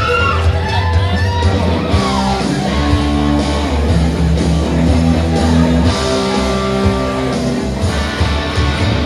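Live rock band playing loud, with electric guitar to the fore over bass and drums; the guitar bends notes in the first couple of seconds, then holds long sustained notes.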